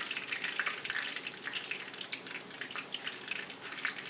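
Hot oil sizzling and crackling in a skillet as chicken fritters fry, with many quick irregular pops.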